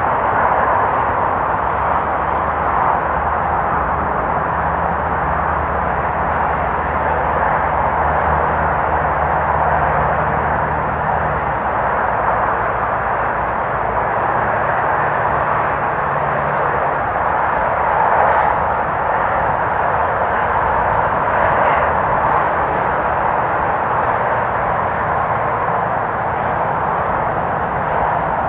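Distant freeway traffic: a steady, muffled wash of tyre and engine noise with no single vehicle standing out. A low hum sits under it for the first half and fades out about sixteen seconds in.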